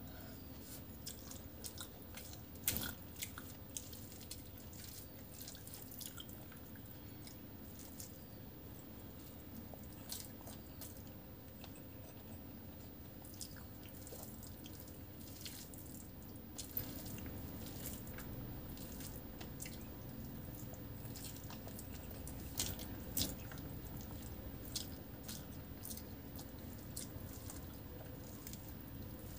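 Hand-eating sounds: scattered wet clicks and smacks from chewing and from fingers mixing rice with dal on a plate, the sharpest about 3 seconds in and twice around 23 seconds, over a steady low background hum.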